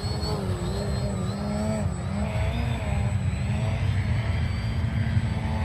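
RC model airplane's motor running in flight, its pitch wavering up and down, over a heavy low rumble of wind on the microphone.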